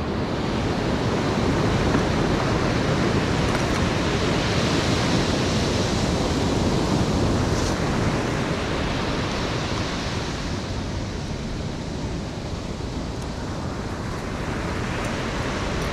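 Ocean surf breaking and washing ashore as a steady rush, swelling a few seconds in, easing off, and building again near the end.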